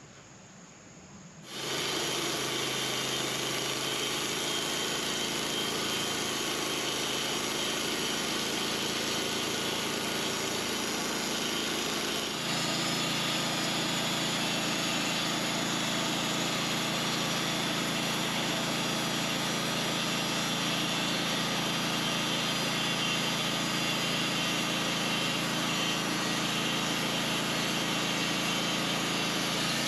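A sawmill's engine running steadily, cutting in abruptly about a second and a half in. About twelve seconds in it gets a little louder and its note drops lower.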